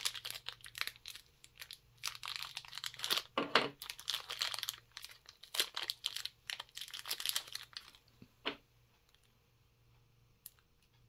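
Small clear plastic bag crinkling and tearing as it is worked open by hand, in rapid crackles for about eight seconds, followed by a couple of light clicks.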